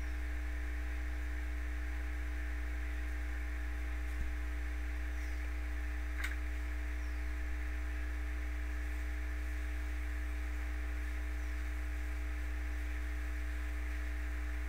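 Steady electrical hum with a low drone, a few steady higher tones and a hiss, and a couple of faint clicks about four and six seconds in.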